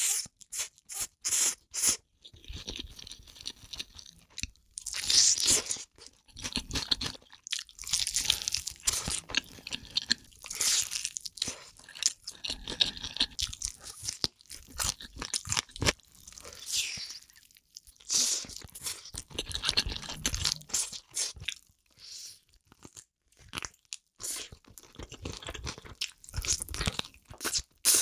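Close-miked eating of spicy noodles: irregular chewing and crunching with wet mouth clicks, and repeated noisy stretches of a second or two, each typical of a slurp.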